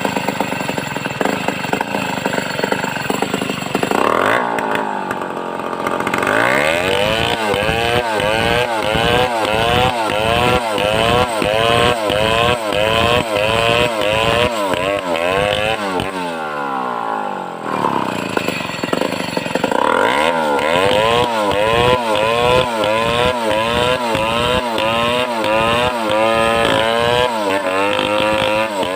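Large two-stroke chainsaw, a home-assembled Stihl 070-type clone, running steadily, then revving up about four seconds in. Under load its pitch wavers rapidly up and down as it cuts through the log; it drops back briefly near the middle and revs up again into the cut.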